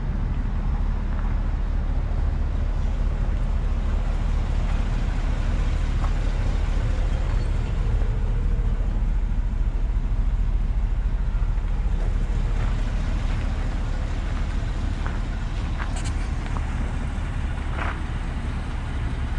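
Isuzu NPR HD gas truck engine idling steadily with a low rumble. A few light clicks come near the end.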